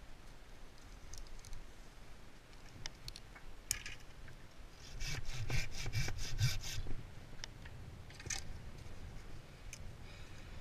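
A quick run of rasping strokes on wood, about five a second for nearly two seconds, with a single scrape before and another after.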